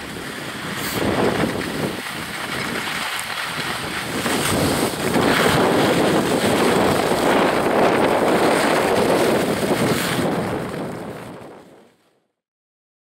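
Skis sliding and scraping on firm piste snow during a downhill run, with wind rushing over the microphone. The sound is a steady noisy rush that grows louder in the middle and fades out near the end.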